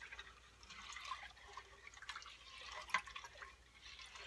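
A wooden spoon stirring milk with uncooked long-grain rice and sugar in a steel pot: faint, uneven sloshing and swishing of the liquid, with a few light knocks.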